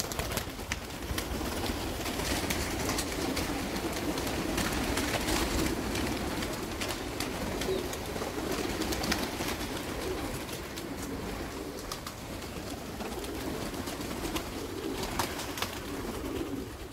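Many domestic pigeons cooing at once, a continuous low cooing with scattered short clicks.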